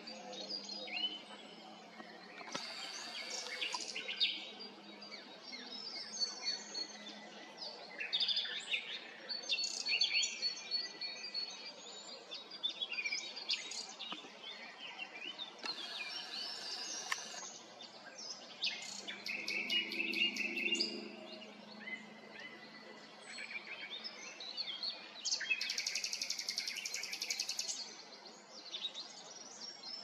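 Common nightingale singing: a continuous string of varied phrases of clear whistles, pitch glides and chattering notes, broken by several loud, very rapid rattling trills.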